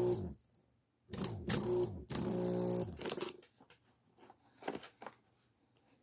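Washing-machine drain pump motor, out of the machine and being bench-tested after sticking, stops humming right at the start and winds down. It is powered twice more briefly, about a second in and about two seconds in, each time humming and then winding down. A few faint clicks follow.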